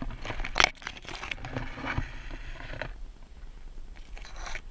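Leaves and twigs brushing and crackling against a handheld camera carried through undergrowth along a fallen log: a few sharp cracks, the loudest about half a second in, then a stretch of rustling and scraping.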